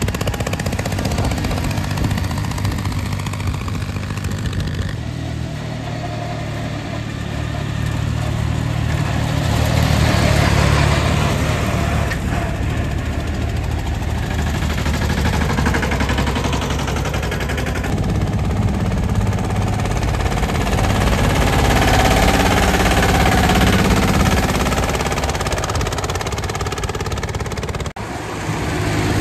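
Steeltrac mini tractor's diesel engine chugging steadily as it pulls a trolley loaded with gravel, growing louder twice as it accelerates; the sound breaks off sharply about a second before the end.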